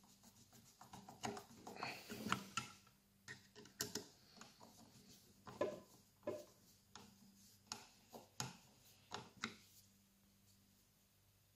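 Phillips screwdriver turning a small screw into the plastic laser battery cover of a circular saw: a run of faint, irregular clicks and ticks of the driver tip and plastic being handled, stopping about two seconds before the end.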